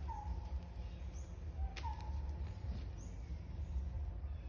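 Outdoor ambience with a steady low rumble. Two short whistled calls, each hooking up in pitch, come just after the start and about two seconds later. A faint high chirp repeats about every two seconds.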